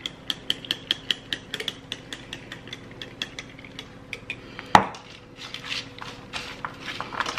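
Olive oil sprayer bottle with a metal pump top clicking rapidly, about four times a second, as oil is spritzed over a sheet pan of vegetables. One sharp knock comes near the middle, and then vegetables rustle and clack on the parchment-lined pan as they are spread by hand.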